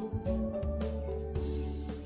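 Background music with a steady beat, about two strikes a second, over held melodic notes.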